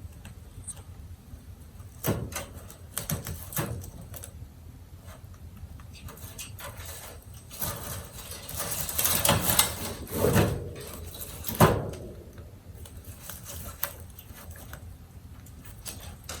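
Rabbit scratching and tearing at a woven timothy-hay mat: irregular rustling scratches and sharp knocks, the busiest stretch of scratching a little past halfway and the loudest knock soon after.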